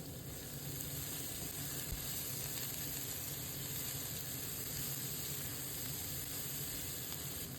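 Chopped vegetables sautéing in oil in a frying pan, sizzling steadily.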